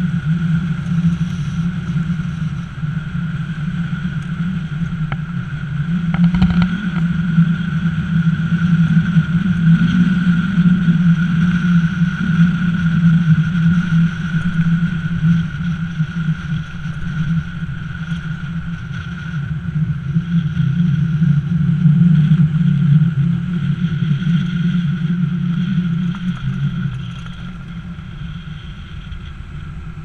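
Car driving on a gravel road: a steady engine drone with tyre noise and wind on the microphone, dropping in level a few seconds before the end.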